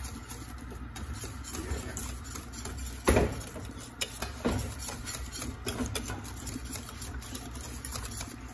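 Wire whisk beating béchamel sauce in a stainless steel pot: a fast, continuous run of clicks and scrapes of the wires against the metal. There is a sharp knock about three seconds in.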